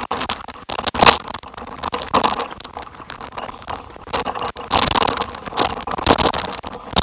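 Irregular crunching and scraping from travel down a rough, rocky dirt track, with scattered sharp clicks and rattles; loudest surges about a second in and again around five to six seconds in.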